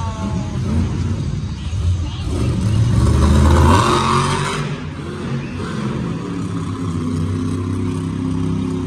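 Monster truck's supercharged V8 engine running and revving, swelling to its loudest about three to four seconds in, then settling back to a steady run.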